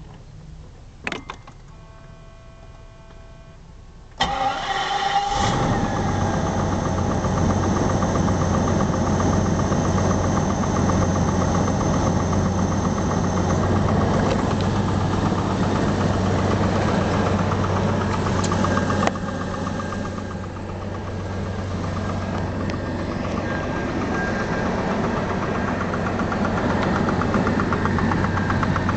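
BMW 750iL V12 engine cranked and catching about four seconds in, then idling steadily with a rhythmic knock running through it, a noise the owner has had for a while and cannot place though the engine runs fine. The idle dips briefly about two-thirds of the way through.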